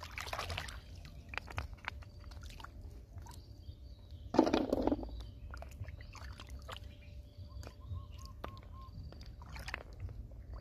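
Hands sloshing and splashing in shallow muddy water while groping for snails, with short clicks and a louder splash about four seconds in.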